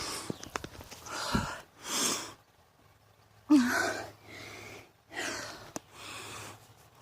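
A woman breathing hard, out of breath from climbing a long flight of stairs without stopping: a run of heavy in-and-out breaths, about one a second, with a voiced gasp about halfway through.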